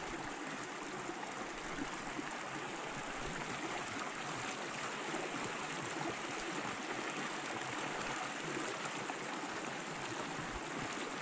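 Small creek's water trickling and running, a steady, even rush of water.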